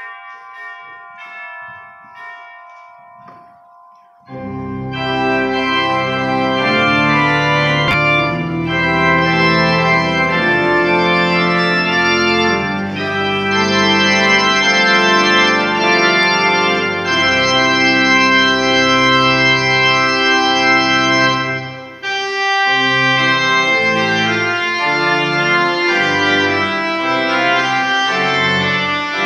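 A few bell-like tones ring and fade, then about four seconds in a church organ comes in loudly with sustained full chords over a deep bass, playing the postlude at the close of the service. The music breaks off for a moment about three-quarters of the way through and goes on.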